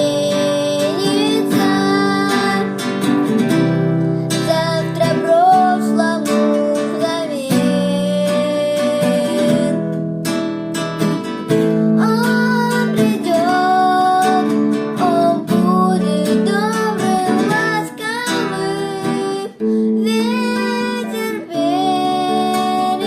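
Classical guitar playing chords with a wavering sung melody line above it.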